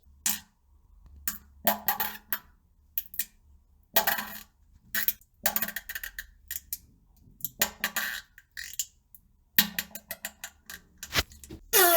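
A rapid, irregular series of short fart sounds, more than a dozen bursts of a fraction of a second each, with a longer pitched one near the end.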